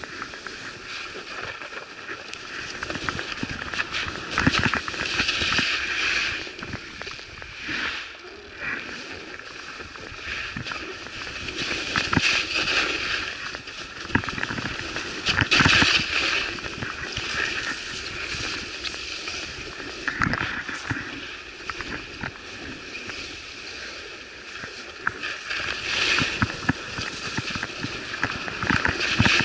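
Skis scraping and carving over a tracked, groomed piste. The hiss swells with each turn and eases between them, with short crackles of hard snow.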